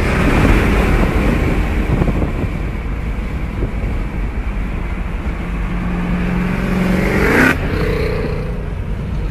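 Mercedes-Benz C63 AMG's 6.2-litre V8 through an iPE exhaust, running hard under acceleration. Its pitch climbs from about six seconds in and cuts off sharply at about seven and a half seconds, then it settles to a lower, steadier drone.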